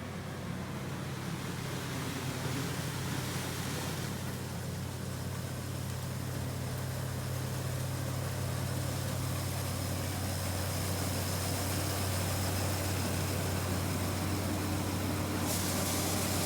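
Case IH 1660 combine's 8.3-litre turbo diesel engine running steadily while harvesting corn, a constant low drone. A higher hiss joins it about four seconds in and drops away near the end.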